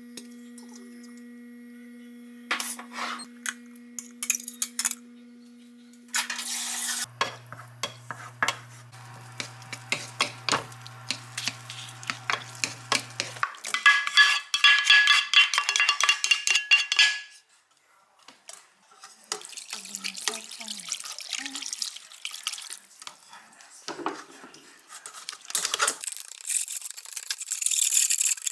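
Kitchen utensils and dishes clinking, knocking and scraping during hand food preparation, over a steady low hum through about the first half.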